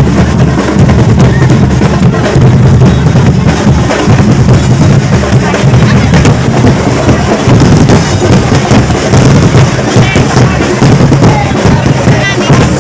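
Loud music with a heavy drum beat and strong bass, voices mixed in.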